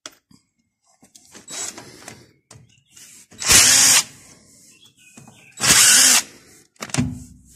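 Cordless 18 V impact driver with a socket extension running in short bursts, twice for about half a second and once more briefly near the end, backing a bolt out of a walking tractor's gearbox housing.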